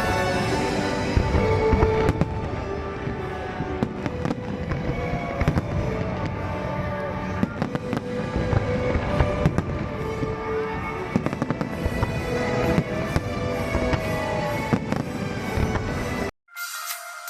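Fireworks bursting and crackling in rapid succession over loud show music. Near the end the sound cuts off abruptly and is replaced by a thin, tinny music track.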